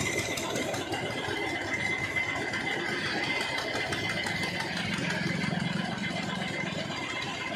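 Air compressor running steadily while air is fed through a hose into a motorcycle's rear tyre.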